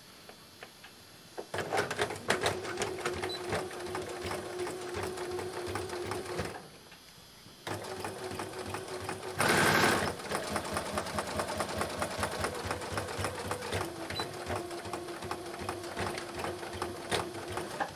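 Electric sewing machine straight-stitching a folded hem: the motor hums under a rapid run of needle ticks. It stops for about a second some six seconds in, then starts again, with a short louder rush of noise about ten seconds in and a change in the motor's pitch a few seconds later.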